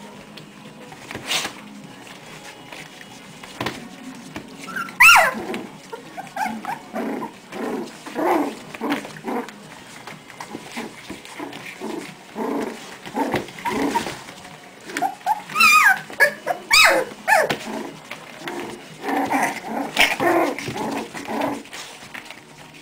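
Puppies play-fighting: many short growls and yips, with a few sharp high yelps that slide in pitch, one about five seconds in and several more past the middle.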